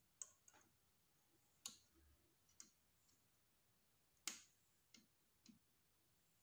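Faint, scattered clicks and taps as a small circuit board and its components are handled by hand against an induction cooktop's plastic housing: about six sharp ticks, the loudest about four seconds in.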